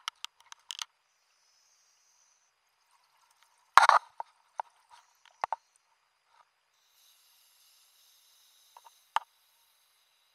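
Scuba diver breathing on a regulator underwater: a crackling burst of exhaled bubbles about four seconds in, trailing off in scattered pops, then the steady hiss of an inhale through the regulator over the last few seconds.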